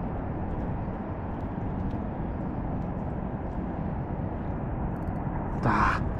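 Steady wind noise buffeting a head-mounted camera's microphone beside rippling water. A brief, louder sound breaks in just before the end.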